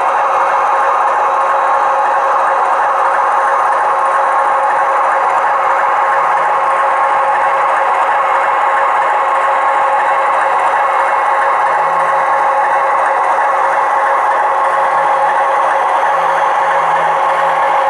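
Sound decoder (ESU LokSound 5) in a Piko H0 model of a DR class 132 'Ludmilla' diesel, playing its recorded diesel engine sound through the model's small loudspeaker: a steady, unchanging drone.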